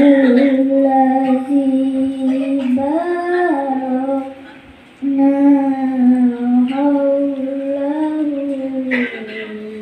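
A child's voice reciting the Quran in the melodic tilawah style: long held, ornamented phrases with a short breath pause about four seconds in, then a new phrase that falls to a lower pitch near the end.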